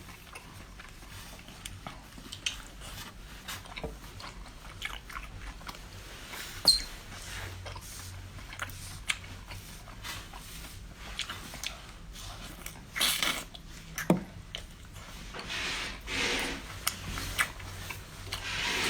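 Close-up eating: repeated biting and chewing of crunchy food, with irregular crunches and clicks and louder bursts of crunching about 13, 16 and 18 seconds in.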